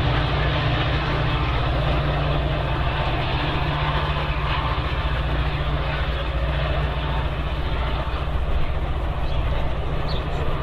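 Metra EMD F40PH-series diesel locomotive running with a steady, deep engine drone and rail noise as the commuter train moves away, growing slightly fainter.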